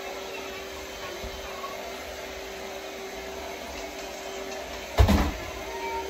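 A vacuum cleaner running with a steady hum, and a loud thump about five seconds in.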